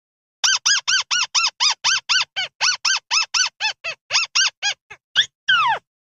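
Buff-banded rail call on a lure recording. It is a fast run of some twenty short notes, each rising then falling in pitch, about four or five a second, followed near the end by a longer call sliding down in pitch.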